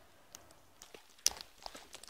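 Footsteps crunching over leaf litter and stony ground, with scattered clicks of gear. One sharper click comes a little past halfway.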